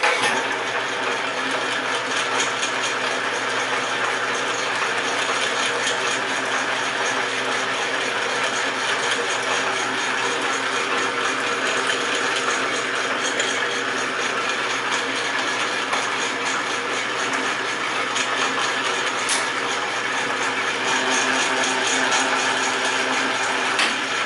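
1940 Sheldon 11-inch metal lathe running under power, a steady mechanical whir of its gear train with the apron power feed engaged.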